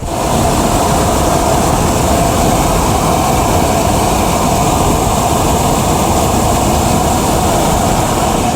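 Hot air balloon's propane burner firing one long, steady blast of flame, a loud, even rushing noise.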